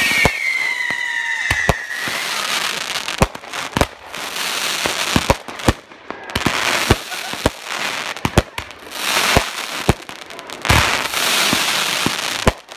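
Fireworks display: aerial shells bursting in sharp bangs at irregular intervals, with crackling stretches between them. A high whistle slides slightly lower in pitch during the first two seconds.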